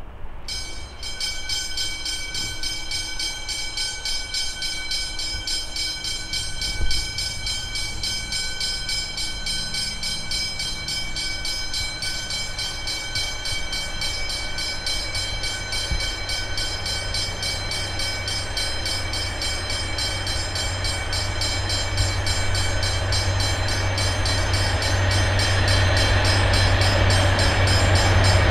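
A diesel-hauled train approaching, its locomotive's engine rumble building steadily and loudest near the end. About a second in, a steady high ringing starts and carries on underneath.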